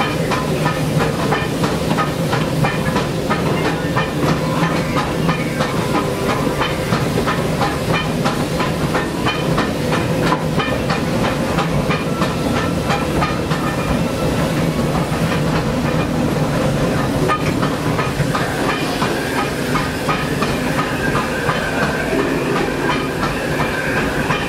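Disneyland Railroad steam locomotive under way, heard from inside the cab: a steady hiss of steam over a fast, continuous clicking and rattling of the running gear and wheels on the track.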